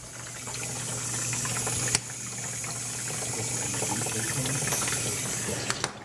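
GE dishwasher with a newly replaced motor running a test cycle: a steady low hum under the hiss of water inside the tub, with one sharp click about two seconds in.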